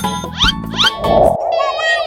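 Upbeat meme background music with a beat, with two quick rising glides about half a second in. Near the end a high, wavering wail starts over it.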